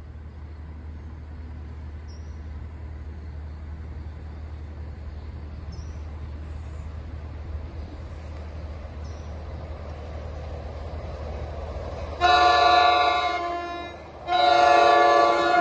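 Horn on an approaching NJ Transit Comet V cab control car sounding several tones at once for a grade crossing: two long blasts near the end, the second after a short break. Before them, a low steady rumble.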